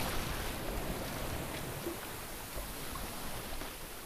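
Steady rushing of wind and water aboard a sailboat under sail offshore, an even wash with no distinct events.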